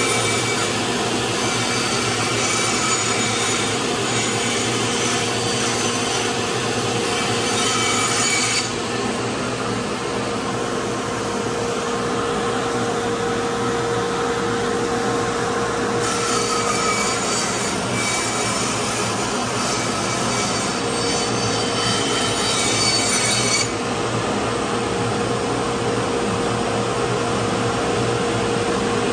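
Band saw running, its blade cutting through a cedar board with a steady whine and rasp; the higher hiss drops away and comes back a few times as the cut goes on.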